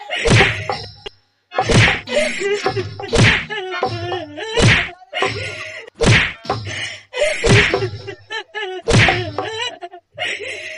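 A wooden stick striking again and again in a staged stage-comedy beating: seven loud whacks about a second and a half apart. A voice cries out after most of the strikes.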